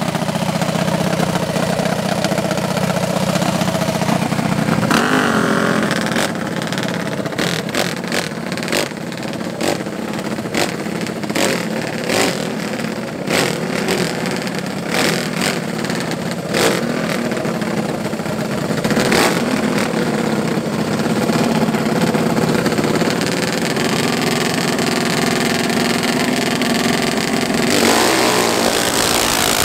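Racing mini bike engines running at the start line, revved in many quick, sharp blips through the middle stretch. Near the end they are revved hard and rise in pitch as the bikes launch.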